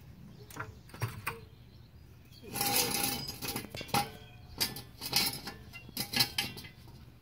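Floor jack and steel jack stand being worked: a few light clicks from the jack being pumped, then about a second of dense metallic rattling with a ringing note, and several sharp metal clinks and clanks as the stand is raised and set under the car.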